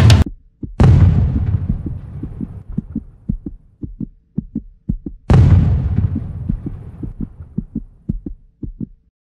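Edited-in soundtrack effects: two deep booming hits about four and a half seconds apart, each with a long fading tail, over a run of short low heartbeat-like thuds that stops just before the end.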